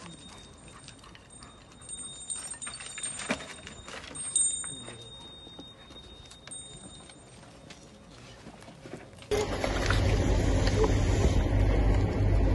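Scattered light clicks and knocks of loose debris under a search dog's paws as it moves across collapsed concrete rubble. About nine seconds in, a loud steady rumbling noise cuts in abruptly.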